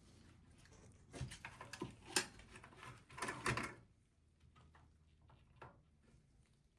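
Handling noise from a desktop PC being taken apart: a cluster of clicks and knocks between about one and four seconds in, then a few faint ticks.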